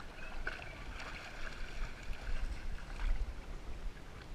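Water sloshing around a dog wading through a shallow river, heard from a GoPro strapped to the dog's head, under a steady low rumble of wind and movement on the microphone.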